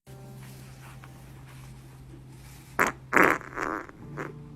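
A person farting: a few short bursts about three seconds in, the middle one loudest, over a faint steady low hum.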